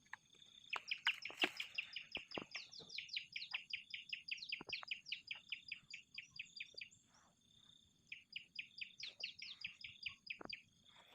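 A bird singing long runs of quick, repeated high chirps that each slide downward, about six a second, in two bouts with a short pause between them, over a steady high insect drone.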